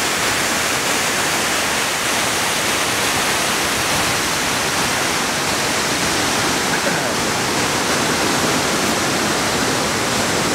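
Waterfall water rushing in a steady, unbroken roar of noise.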